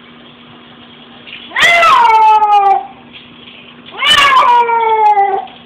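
Cat meowing loudly: two long meows about two seconds apart, each falling in pitch.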